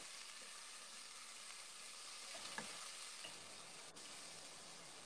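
Meat, carrots and mushrooms faintly sizzling as they fry in oil in a pan, with a spatula stirring them and a few light scrapes and taps.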